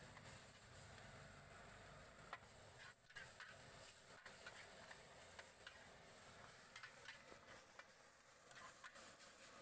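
Faint sizzling with scattered light clicks and scrapes of a metal spatula against a wide flat wok as noodles are stir-fried.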